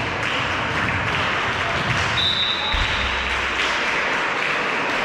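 Volleyball in a sports hall: the ball being hit and bouncing amid the chatter and calls of players and spectators, with a short, shrill referee's whistle about two seconds in.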